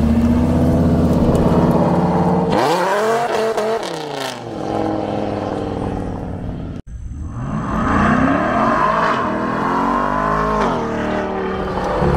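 Supercar engines revving, the pitch climbing and falling twice. The sound breaks off sharply about seven seconds in.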